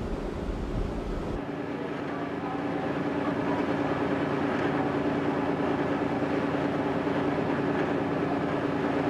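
A motor vessel's engine running with a steady hum over the rush of water from its wake. A deeper rumble in the first second and a half drops away, and the hum holds steady after that.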